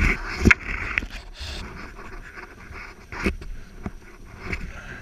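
Snow crunching and scraping, with a few sharp knocks, as a stuck Polaris RMK Pro snowmobile is hauled over by hand in deep powder. The engine is not running. The rider is breathing hard from the effort.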